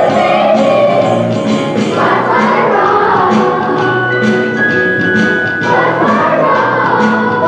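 Children's choir singing a song over instrumental accompaniment with a steady beat.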